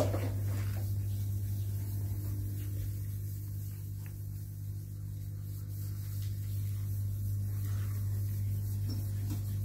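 A steady, low electrical hum, like an electric motor or appliance running, holding one even pitch throughout.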